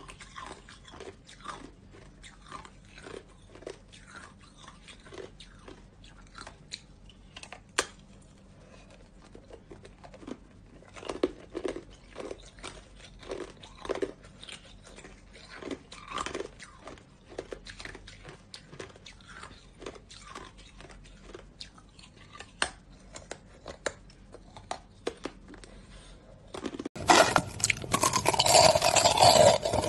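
Hard ice being bitten and chewed, an irregular run of crisp crunches. About 27 s in it switches abruptly to much louder, dense, continuous crunching of crushed ice.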